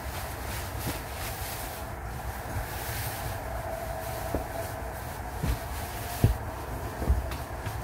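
Bedding and cushions being handled and folded: fabric rustling with a few dull knocks, the loudest about six seconds in, over a steady low rumble.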